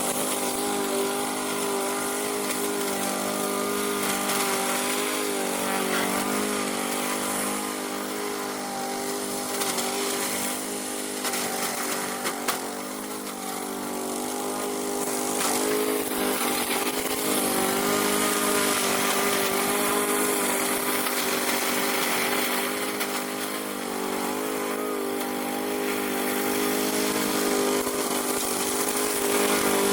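A remote-control lawn mower's 13 HP 452cc Loncin single-cylinder engine running steadily, its pitch dipping and recovering several times.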